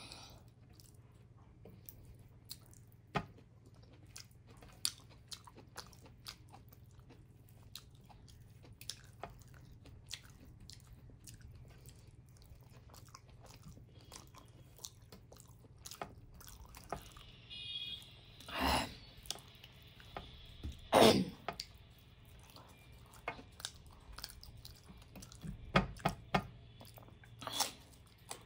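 Close-up hand-eating sounds: fingers mixing soft millet dhindo and greens and chewing with the mouth, many small wet clicks and smacks, with two louder ones about 19 and 21 seconds in and a quick cluster of clicks near the end.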